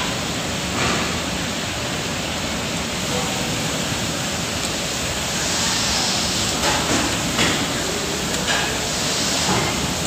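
Puris deep-frying in hot oil in an iron kadhai: a steady sizzle with a few brief louder crackles.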